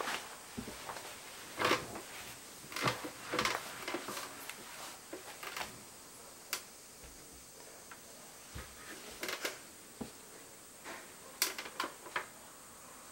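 Herman Miller Aeron chair's tilt mechanism creaking as the sitter leans back and forth: short, irregular creaks and clicks, a few of them louder, clustered about two seconds in and again near the end.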